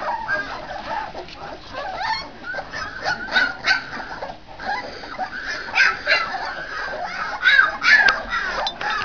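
Miniature bull terrier puppies yipping and whimpering in many short, high calls, coming more often from about two seconds in.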